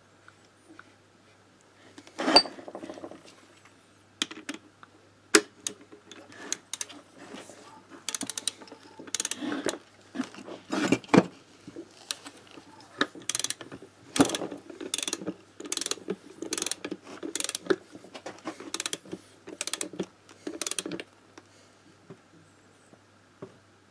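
Ratchet of a torque wrench clicking in quick short strokes as a nut on the engine is run down and tightened, with a steady rhythm of clicks through the middle and end.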